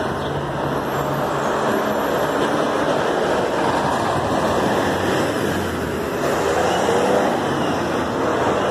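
Street traffic passing: car engines and tyre noise, with a heavy dump truck driving by close among the cars.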